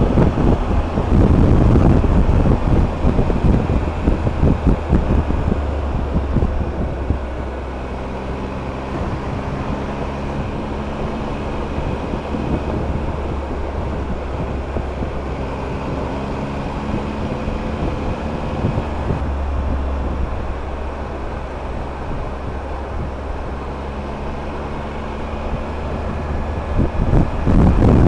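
Triumph Tiger adventure motorcycle's engine running at a steady cruise, with wind buffeting the microphone; the wind is loudest in the first few seconds and again near the end.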